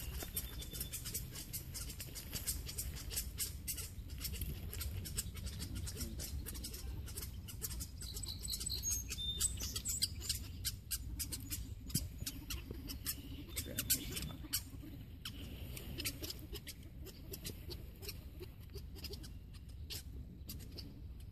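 Outdoor ambience: birds chirping now and then over a steady low rumble, with many scattered small clicks and rustles.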